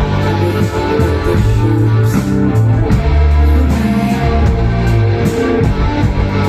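Post-punk band playing live: electric guitar chords over a moving bass line and steady drums, with no vocals.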